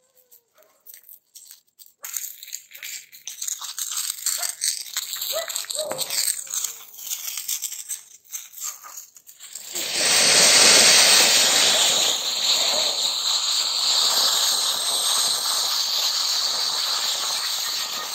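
Ground fountain firework gushing sparks with a loud, steady hiss that starts suddenly about ten seconds in, after several seconds of scattered crackling and sputtering.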